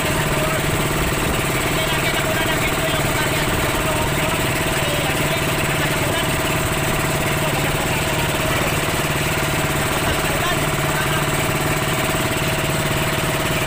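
Motorboat engine running steadily, a constant drone with a fine, even beat.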